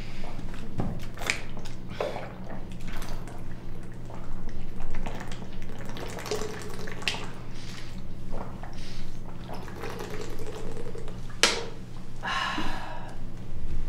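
Two people gulping water straight from plastic bottles, with repeated swallows and the water sloshing in the bottles, over a steady low hum. A sharper sound comes about 11 seconds in, followed by a short noisy burst.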